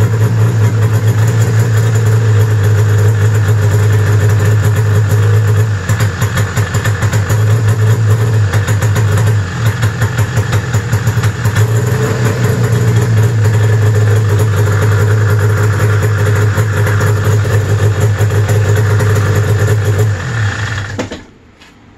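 1995 Arctic Cat ZR 700 snowmobile's two-stroke twin engine running at idle, stumbling briefly a few seconds in and again near the middle, like it is wanting to run on one cylinder, then shut off near the end. The putzing comes with the hand warmers switched to high, a sign of the sled's intermittent spark fault under electrical load.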